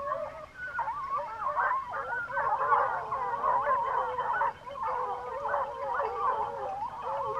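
A pack of hunting hounds baying together in full cry, many voices overlapping without a break. This is the sound of running hounds giving tongue on a wild boar's trail.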